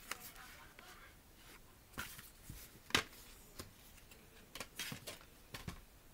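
Plastic DVD case being handled and opened: a string of scattered clicks and rustles, the sharpest about three seconds in.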